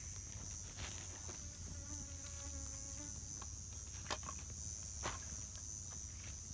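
Steady, high-pitched drone of insects, with a few sharp clicks scattered through it.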